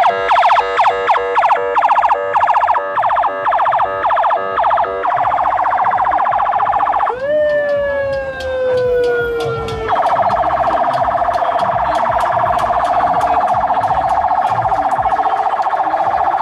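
Electronic vehicle siren cycling through its patterns. It gives rapid on-off pulsing tones for about five seconds, then a steady tone, then a slow falling tone from about seven to ten seconds in, then a long steady tone.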